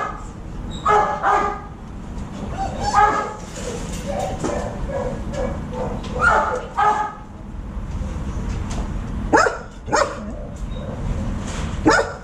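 A dog barking: short pairs of barks every two to three seconds, a quicker run of shorter, lower barks around the middle, and a few sharp single barks near the end.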